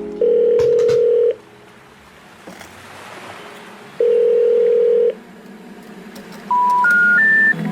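Telephone line tones: two long steady beeps, about a second each and a few seconds apart, then three short beeps stepping up in pitch near the end, the rising three-tone signal that comes before a 'number cannot be reached' recorded message.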